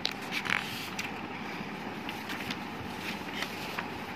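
Loose sheets of drawing paper being shuffled and turned over by hand: faint, scattered paper rustles and soft taps, the strongest in the first second, over a steady background hiss.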